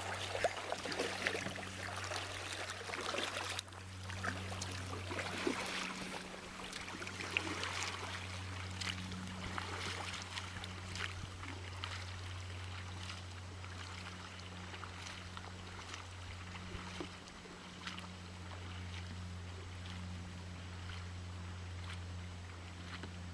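Kayak paddle strokes dipping and splashing in river water while the kayak is turned in a tight circle, with water trickling off the blades. A steady low hum runs underneath.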